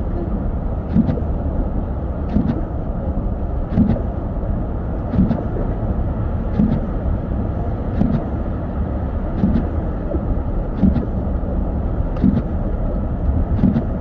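Car's windshield wipers sweeping through snow, a short thud with a click on each stroke about every second and a half, over the steady rumble of road and engine noise inside the cabin.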